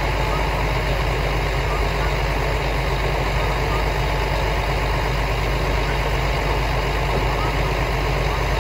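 JR Kyushu KiHa 220 diesel railcar idling at the platform: a steady diesel engine drone.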